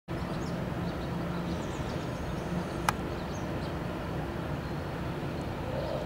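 Steady low rumble of background noise with faint, short, high bird chirps over it. A single sharp click comes about three seconds in.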